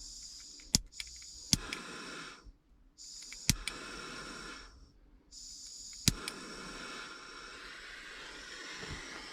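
Small soldering torch hissing in three stretches, each cut off for about a second between them, with a few sharp clicks along the way. The torch is heating solder on car radio wire joints.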